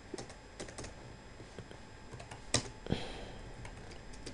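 Typing on a computer keyboard: a scattered run of key clicks, with two heavier keystrokes a little past halfway.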